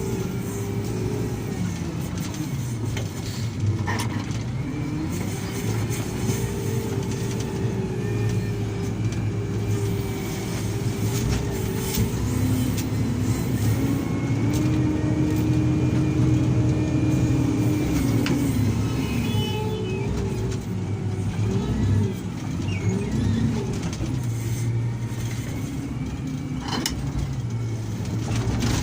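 Doosan 340 hydraulic excavator working: its diesel engine runs steadily under load while the pitch of the engine and hydraulics rises and falls several times. A couple of sharp knocks come about four seconds in and near the end.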